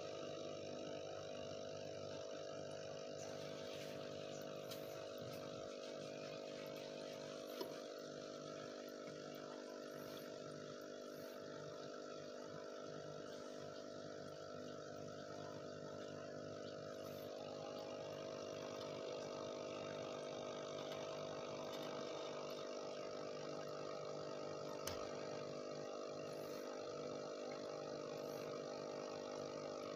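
Aquarium air pump humming steadily, with a faint hiss of bubbles from the air line.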